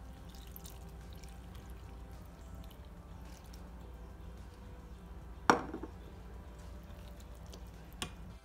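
Milk being poured from a plastic measuring cup onto boiled potatoes in a pan, over a low steady hum. A single sharp knock comes about five and a half seconds in, and a lighter click near the end.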